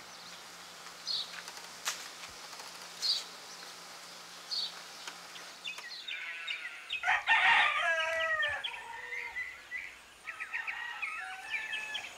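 A rooster crows once, a long drawn-out call about seven seconds in, with small birds chirping around it. Before it, a short high chirp repeats every second or so.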